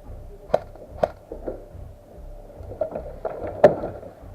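Airsoft guns firing single shots as sharp cracks: two about half a second apart, then a run of smaller clicks and one louder crack near the end.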